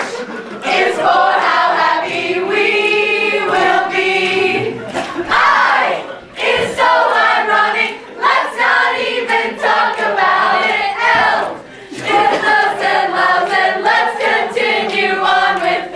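A group of voices singing a song together, phrase by phrase with short breaths between.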